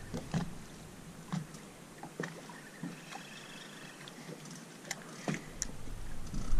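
Water lapping quietly against the hull of a drifting boat, with scattered light clicks and ticks.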